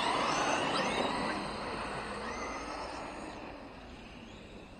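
Radio-controlled trucks pulling away on a dirt track: a high motor whine that rises and falls over a rough haze of tyre and gravel noise, growing fainter.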